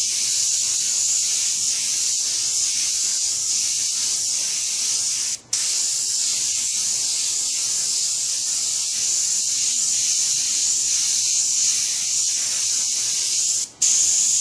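Dual-action siphon-feed airbrush hissing steadily as compressed air sprays paint in dagger strokes. The air cuts off briefly about five and a half seconds in and again near the end.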